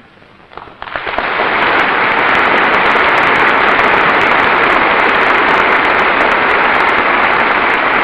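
Large audience applauding, starting about a second in and quickly building to steady, loud clapping.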